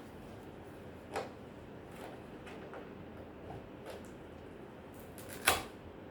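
A few light clicks and taps over a steady low hiss, with one sharper, louder click about five and a half seconds in.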